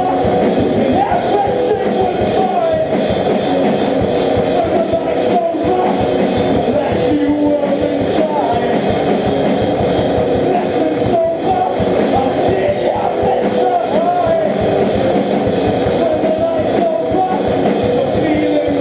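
A rock band playing a song, loud and steady, with a rock-band instrument sound throughout.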